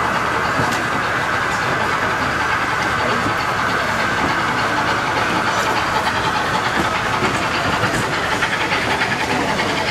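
A model train, a steam locomotive with a rake of coaches, running round a model railway layout, its wheels rattling on the track, over steady hall noise.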